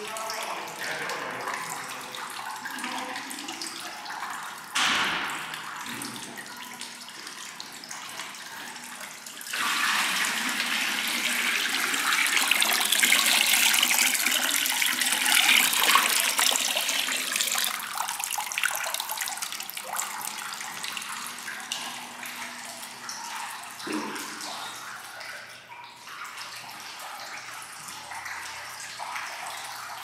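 Water trickling from a stone lobby fountain's bronze spouts into its basin. A sharp knock comes about five seconds in. From about ten seconds in, a much louder rush of pouring and splashing water lasts about eight seconds as the fountain is refilled from a plastic jug, then it falls back to the trickle.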